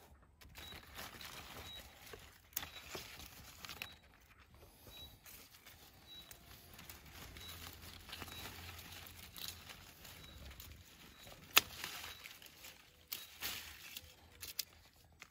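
Grapevine leaves rustling and crinkling as hands push through the vine, with scattered sharp clicks of pruning shears cutting grape bunches. The loudest single snip comes about three-quarters of the way through.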